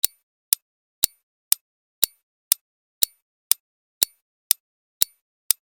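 Quiz countdown timer sound effect: a clock ticking evenly, about two sharp ticks a second.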